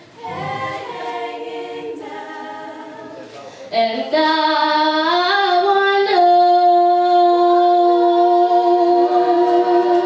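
A group of young women singing a cappella in harmony, softer at first and louder from about four seconds in, then holding one long chord from about six seconds in.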